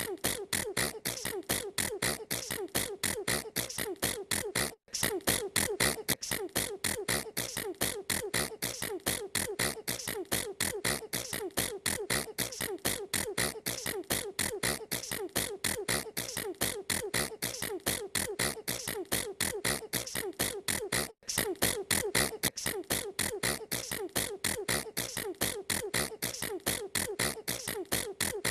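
A girl sneezing over and over in a fast, even run of short, sharp sneezes, several a second, without a pause. The run breaks off for an instant about five seconds in and again about three quarters of the way through.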